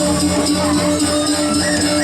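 Balinese gamelan music for a barong bangkung dance: steady ringing tones under a dense, busy percussion texture.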